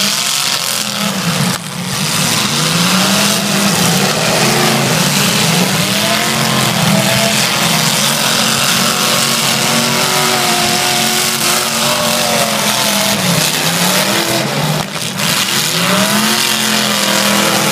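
Several demolition derby cars' engines revving hard and easing off over and over, their pitch rising and falling every second or two, with more than one engine heard at once.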